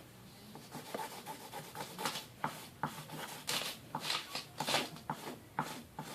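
Writing on paper: irregular scratching and rubbing strokes, a few longer and louder ones in the middle.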